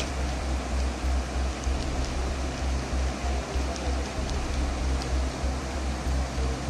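Floodwater rushing over a submerged road in a steady roar, with a low rumble that swells and fades.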